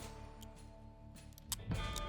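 Quiet background music with held tones, and a short click about one and a half seconds in.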